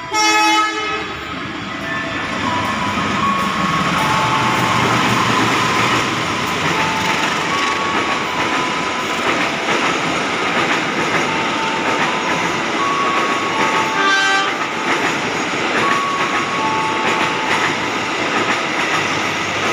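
Locomotive-hauled passenger train running past with a steady rumble and wheel clatter. The locomotive's horn sounds briefly as it arrives, and again briefly about two-thirds of the way through.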